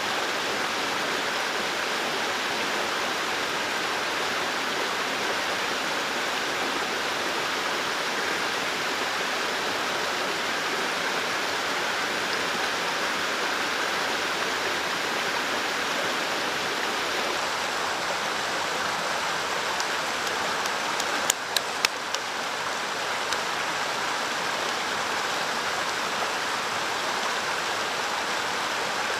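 Mountain stream rushing over rocks, a steady, even flow. About two-thirds of the way in, three or four sharp clicks come close together.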